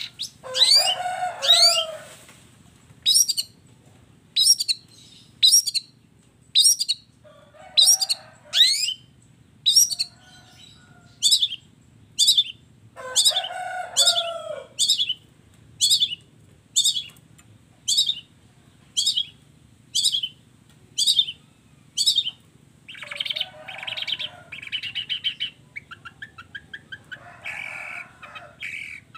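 Long-tailed shrike (cendet) singing: a long run of short, sharp upward-sweeping whistled notes about one a second, broken three times by a harsher, rasping call, then fast chattering phrases near the end. Its song here is the mimicry-filled 'isian' style, borrowing calls of other birds.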